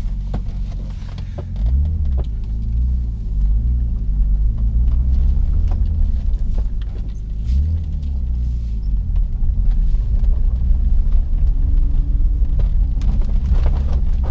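BMW M52/S52 straight-six engine heard from inside the E36's cabin, pulling away at light throttle through the low gears, its note rising as the car accelerates about two seconds in and again about seven and a half seconds in.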